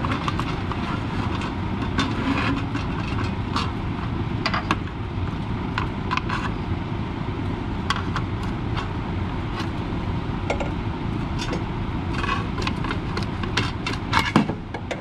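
Irregular metallic clicks and clinks from a socket wrench turning out the bolts of an automatic transmission's flexplate, over a steady low hum, with a sharper clank near the end.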